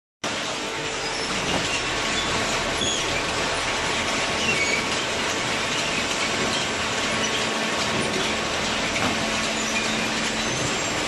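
Vertical hydraulic scrap baler running: a steady machine hum and rattle, with many short high squeaks and creaks scattered through it.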